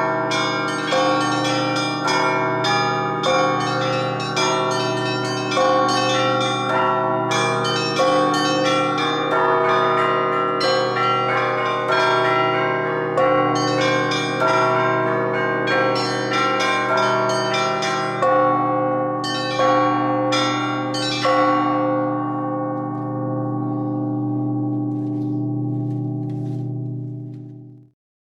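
Russian Orthodox church bells rung by hand in a full peal, large and small bells struck together several times a second. The last strokes come about three-quarters of the way through, then the bells hum on, dying away until the sound cuts off sharply just before the end.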